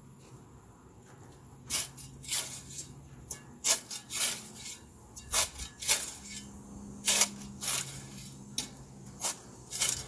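Steel shovel blade scraping and chopping into dry, dusty soil and grass roots: a run of sharp scrapes, roughly one every half second to second, starting about two seconds in.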